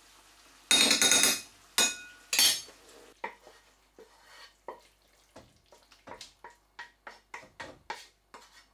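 Kitchenware clatter: a loud scrape of a spoon in a ceramic bowl about a second in, then a wooden spatula scraping and knocking on a frying pan as chicken is tipped into the bowl, a run of short knocks about three a second.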